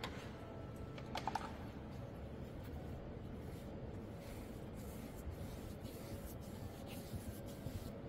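Faint rubbing of a wide flat brush over rough watercolour paper, with a few light clicks about a second in, over a low steady room noise.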